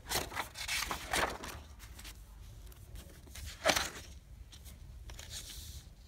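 Paper pages of a spiral-bound book being flipped by hand: several quick rustling swishes, with one sharper page slap a little past halfway.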